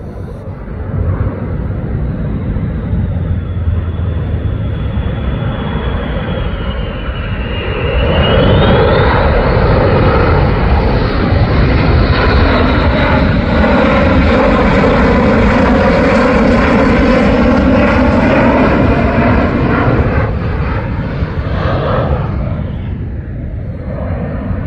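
F-15E Strike Eagle's twin jet engines flying past low overhead. A rumble with a whine that dips and then rises swells sharply about eight seconds in, stays loud with a shifting, sweeping tone, and eases off near the end.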